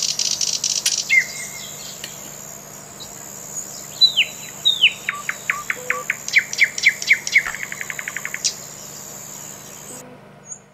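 Small birds singing: clear chirps and downward-sweeping whistled notes, then a fast run of short repeated notes, over a steady high insect-like buzz. It all stops abruptly near the end.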